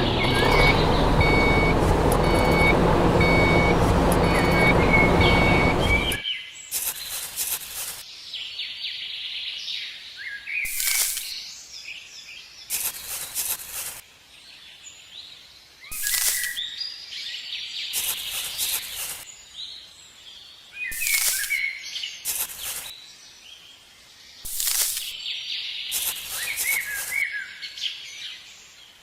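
Birds chirping in short calls every second or two against a quiet outdoor background. For about the first six seconds a loud, steady noise with a low hum covers them, then cuts off suddenly.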